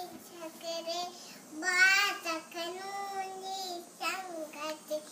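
A little girl singing a Hindu devotional prayer song in a high child's voice, held notes in short phrases with brief breaths between them.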